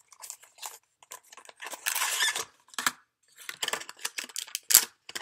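Clear plastic packaging being handled as a small phone fan is unboxed: irregular crinkling, rustling and clicks, with a longer rustle about two seconds in and one sharp snap near the end.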